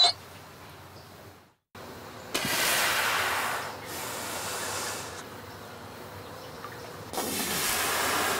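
A manatee gives one short squeak at the very start. After that comes an underwater rushing hiss in two bursts of about a second and a half each, the second near the end.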